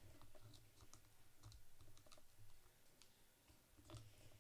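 Faint, scattered small clicks and taps of fingers working at the plastic frame and speaker of a Samsung Galaxy Tab A tablet, a few each second.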